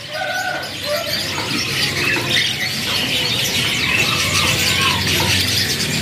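A cage full of young canaries chirping and twittering together: many short high notes overlapping without a break, over a faint low steady hum.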